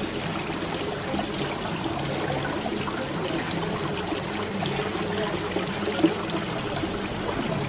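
Water trickling and splashing steadily from several small tiered cascade water features running together, spilling from bowl to bowl.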